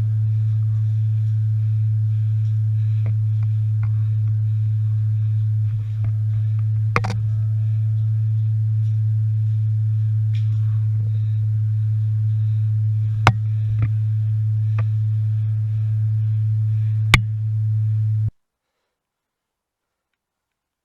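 A steady low electronic hum with a fainter overtone above it, broken by a few faint clicks, cutting off abruptly to silence near the end.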